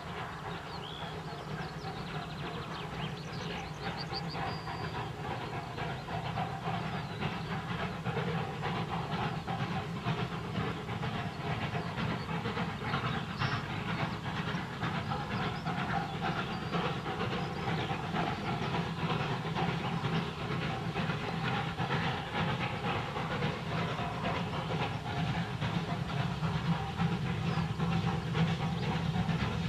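Steam locomotive hauling a train of coaches, its exhaust chuffing in a rapid steady run of beats over a low rumble. It grows louder as the train approaches.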